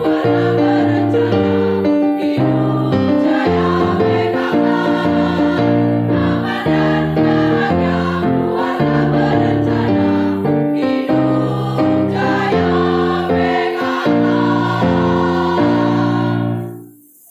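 Women's choir singing a march with keyboard accompaniment, in a steady rhythm. The piece closes on a held final chord that stops sharply near the end.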